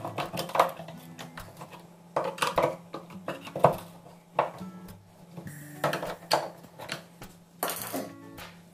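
Steel screwdriver prying and scraping at an old door lock's metal faceplate in the edge of a wooden door: irregular metal clinks and scrapes.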